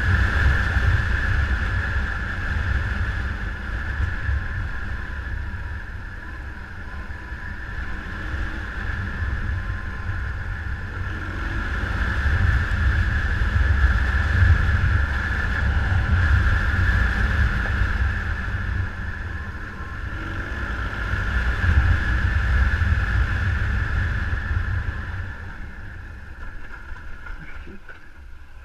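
A heavy engine runs with a deep rumble that swells and fades in slow waves, a steady high whine over it, and wind buffeting the microphone. It fades away over the last few seconds.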